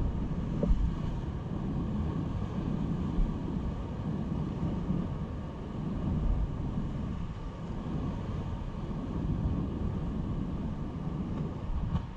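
Wind buffeting the microphone: a low rumbling noise that swells and eases in gusts, with a couple of brief knocks.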